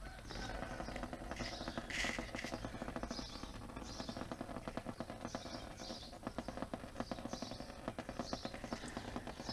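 Engine oil dripping from the emptied oil filter housing into a drain basin, a fast soft pattering, while a bird chirps over and over, about twice a second.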